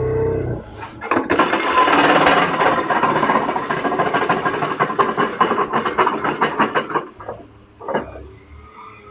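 Hydraulic vibratory pile driver running, a loud rapid rattle that starts about a second in and cuts off about seven seconds in, followed by a short burst near the end.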